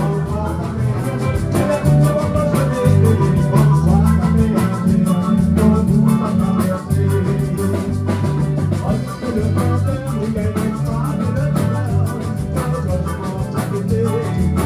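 Live band music with bass guitar, drums, electric guitar and keyboard playing a steady dance beat.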